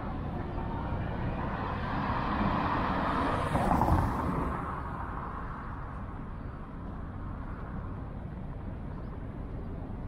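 A car passing by, its noise swelling to a peak about four seconds in and then fading, over steady street ambience.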